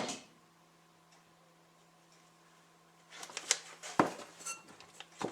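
Quiet at first, then from about three seconds in a run of light metallic clicks and clatter, with one sharp knock about four seconds in: a greased bearing and tools being handled on a workbench.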